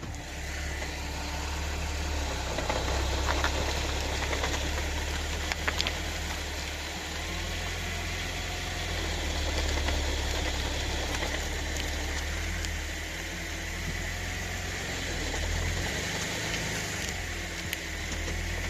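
2012 Audi B8 S4 with its supercharged 3.0 V6 running low while reversing, with a few short clunks from the driveline about three and a half seconds in, around six seconds in and near the end. The clunks are the sign of excessive backlash in the drivetrain.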